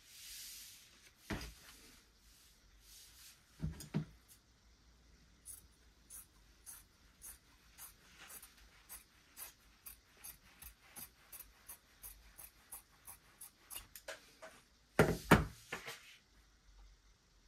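Fabric scissors snipping through cotton fabric in a steady run of sharp cuts, about three a second, after a brief rustle of fabric. A few loud knocks near the end are the loudest sounds.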